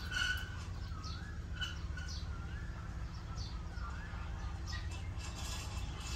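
Birds chirping and warbling faintly in the background, a few short wavy calls and quick high chirps, over a steady low rumble.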